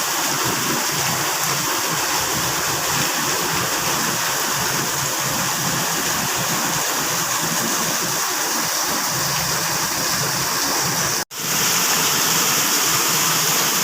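Rainwater rushing and pouring steadily in a heavy, continuous flow. It breaks off for an instant about eleven seconds in, then carries on slightly louder.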